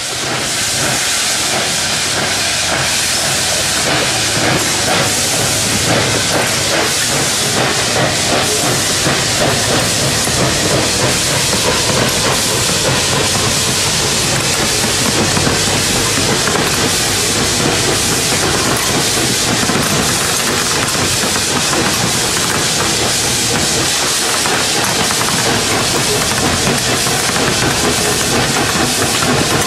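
A small Porter saddle-tank steam locomotive working hard up a grade running light: a loud, steady hissing of exhaust and escaping steam.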